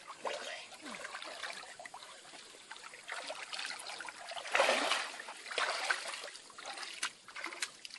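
Pond water splashing and sloshing as a person wades through it waist-deep and climbs out, with a louder splash about halfway through.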